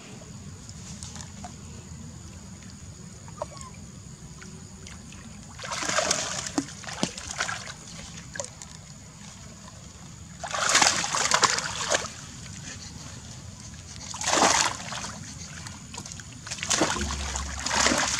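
A young macaque splashing and sloshing about in shallow water, in four separate bouts of splashing a few seconds apart.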